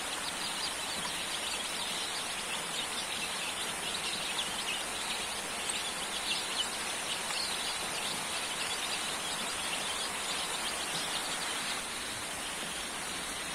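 A brood of chicks peeping continuously in many short high chirps, over a steady hiss of light rain.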